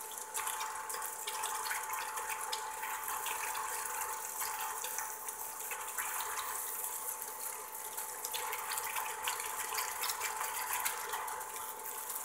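Tomato-sauce and ground-beef stew simmering in a pan: a steady fine crackling sizzle and bubbling, with a thin steady high tone beneath it.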